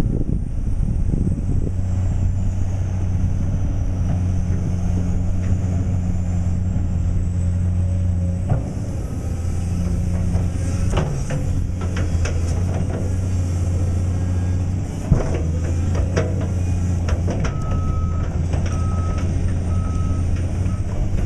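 Caterpillar excavator's diesel engine running steadily, with scattered clanks and knocks from the machine working, and a warning alarm beeping three times near the end.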